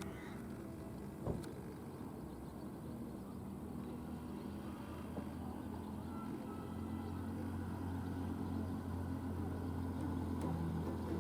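An engine running steadily and slowly growing louder, as if a motor vehicle or boat is approaching, with a single sharp knock about a second in.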